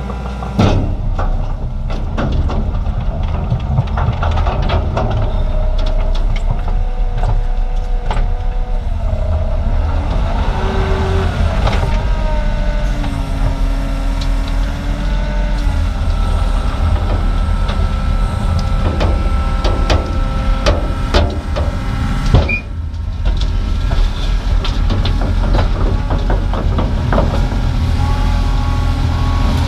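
Diesel earthmoving machine working: the engine runs under load while hydraulic whines rise, fall and hold in pitch, with repeated knocks and clanks of metal, one sharp bang about two-thirds of the way through.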